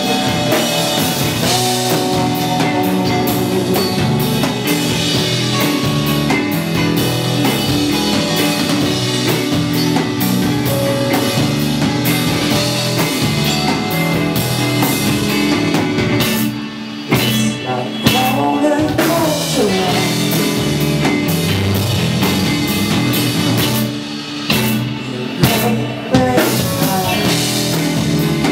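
A live rock band playing: drum kit, electric guitars and bass in a steady groove. The band drops back briefly twice, a little over halfway through and again near the end, before coming back in full.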